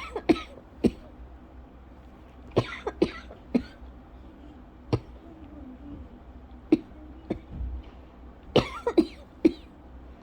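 A woman coughing in a fit: about a dozen short coughs, some single and some in quick runs of three or four. It is a lingering post-illness cough driven by a scratchy throat, not her asthma cough.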